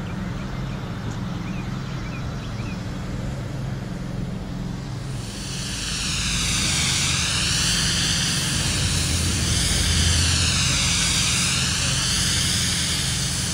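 Steady low machine hum, joined about five seconds in by the loud hiss of an airless spray gun spraying roof coating, the hiss wavering in tone.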